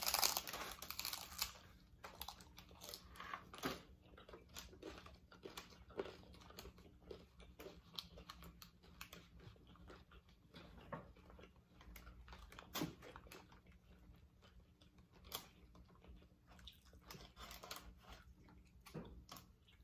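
Crunching and chewing of crisp hard-shell corn tacos: a burst of crunching as a shell is bitten in the first second or so, then scattered sharp crackles of chewing.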